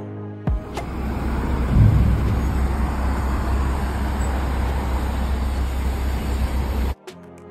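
City street traffic noise: a steady low rumble with a hiss, swelling briefly about two seconds in and cutting off suddenly near the end.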